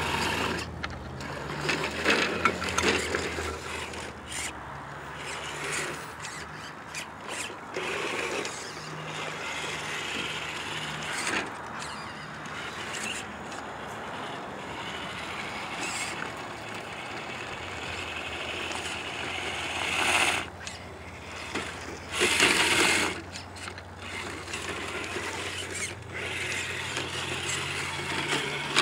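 Radio-controlled scale crawler truck's electric motor and geared drivetrain whining at low speed, pitch shifting as the throttle changes, while its tyres scrabble and scrape over rock and gravel, with two louder scraping bursts about two-thirds of the way through.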